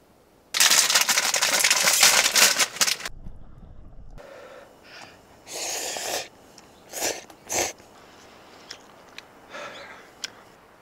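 A person slurping and eating instant ramen noodles: a long, loud, crackly slurp near the start, then several shorter slurps and small mouth clicks.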